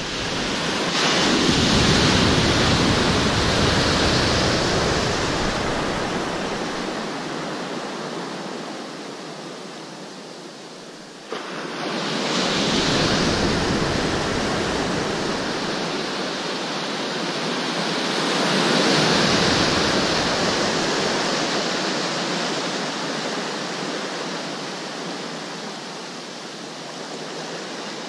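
Ocean surf breaking and washing in, the noise swelling and fading in three long surges, with a single sharp knock about eleven seconds in.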